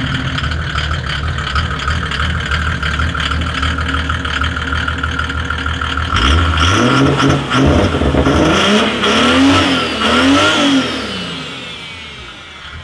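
Turbocharged Mercedes OM606 straight-six diesel in a W124 drift car idling steadily, then revved in a quick series of blips about halfway through before dropping back near the end.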